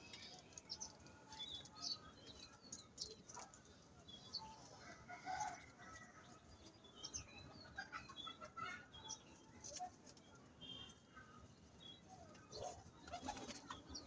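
Faint domestic pigeons in a loft: occasional low cooing and wing flutters, with scattered short, high chirps.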